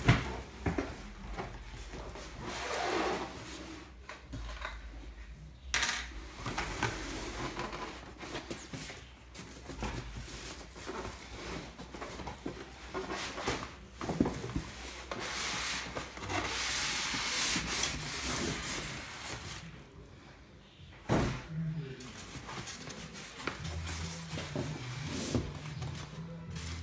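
Cardboard box and packaging of an air fryer being opened and handled: irregular scraping, rubbing and rustling, with a few sharp knocks.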